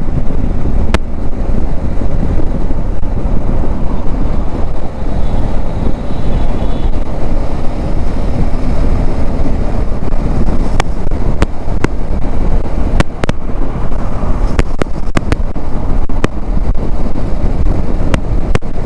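Heavy wind rumble on the microphone of a motorcycle-mounted action camera at about 90 to 100 km/h, fitted with a foam sponge and dead-cat windshield, blended with the bike's engine and road noise. A few sharp clicks are scattered through it.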